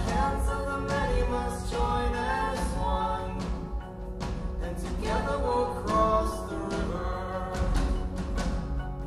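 Background music: a song with a singing voice over a steady drum beat.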